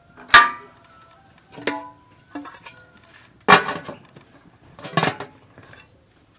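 Aluminium steamer pot clanking as a metal tray is set onto its perforated rack and the domed lid is put on: about five sharp metallic knocks that ring briefly, the loudest about half a second in and again about three and a half seconds in.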